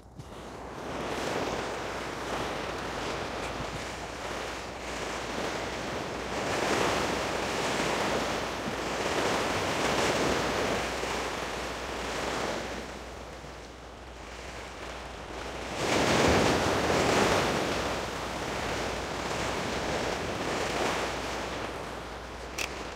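Sea waves washing against a rocky breakwater, a steady rush that swells and eases over several seconds, loudest about sixteen seconds in. A brief click near the end.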